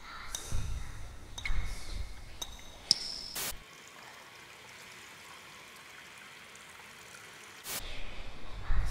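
Eerie ambient sound: water trickling, with ringing pings, sharp knocks and low rumbles. These cut off suddenly about three and a half seconds in, leaving a faint steady hiss, and a low rushing rumble starts near the end.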